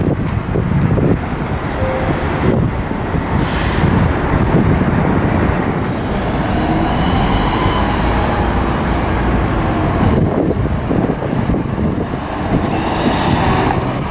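Road traffic of buses, vans and cars running and passing, a steady low rumble with an engine note that rises and falls in the middle. Two short hisses sound, about three and a half seconds in and near the end.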